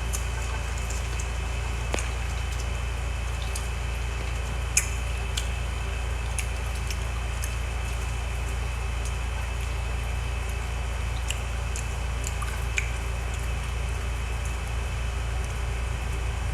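Someone chewing green mango: sparse wet, squishy mouth clicks and smacks scattered over a steady low hum.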